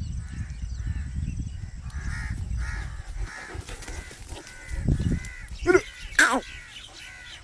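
Crows cawing repeatedly, with two louder calls falling in pitch near the end, over a low rumble that fades after about three seconds.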